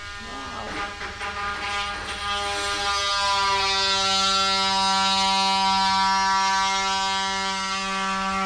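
Steady machine hum with a buzzing tone that builds over the first few seconds and then holds level.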